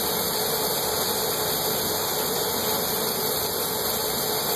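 Steady rushing hiss of a glassblower's hand torch flame, over a glass lathe turning the workpiece, with a faint steady hum underneath.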